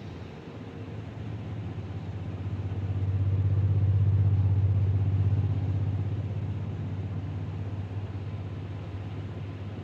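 A low steady mechanical hum, like a motor or engine running, that grows louder around the middle and then eases off without changing pitch.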